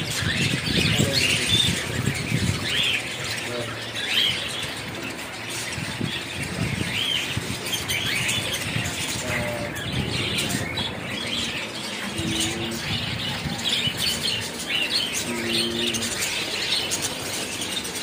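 A flock of caged budgerigars chattering, with many short overlapping chirps.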